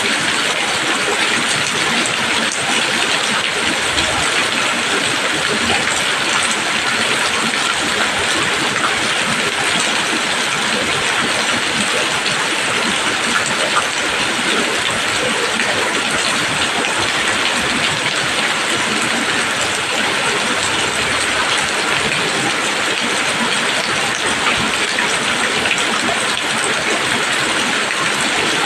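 Steady rain falling on leaves, an even, unbroken wash of dense drops.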